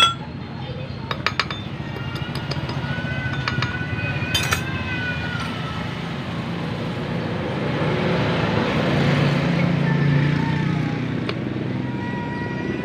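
A motor vehicle engine running steadily in the background, growing louder in the second half and easing off near the end, with a few sharp metallic clicks in the first seconds.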